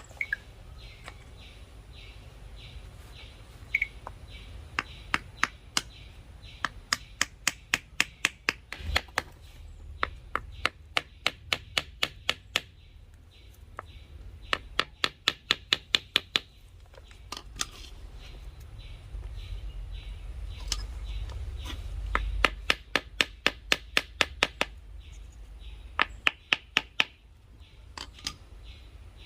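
Repeated light taps in runs of several, about three or four a second, with short pauses between runs: a battery carbon rod being knocked down into its hole in a small wooden holder.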